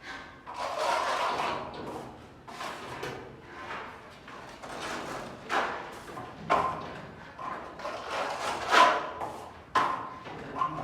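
A hand tool scraping across a wall in repeated strokes, about one every second or two, as the wall surface is worked during painting.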